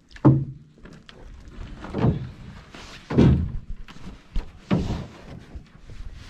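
Aluminum canoe being paddled: four hollow thunks about a second and a half apart, each with a short swish, as the paddle strokes knock against the metal hull.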